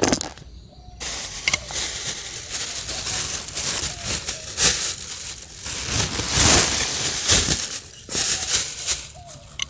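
Loud, close rustling and crinkling with a few sharp cracks, starting about a second in and dying down near the end.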